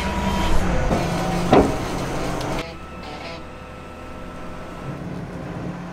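An engine running steadily. About two and a half seconds in, the sound drops abruptly to a quieter steady hum.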